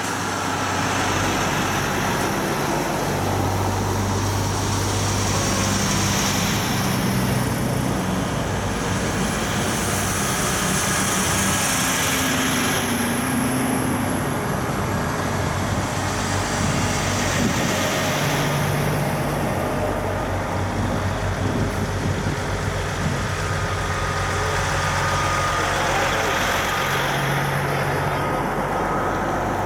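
Heavy diesel trucks driving past one after another, each engine drone and tyre noise swelling and fading, with a new pass-by about every six seconds; the first is a cab-over truck with a Detroit Diesel engine. Cars pass near the end.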